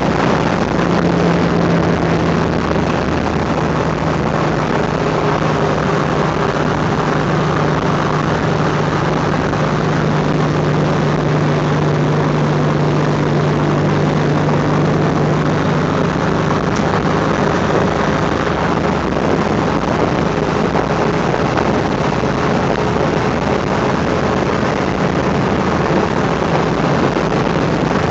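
Car cruising at speed, heard from inside the cabin: a steady engine drone at an even pitch over continuous road and wind noise.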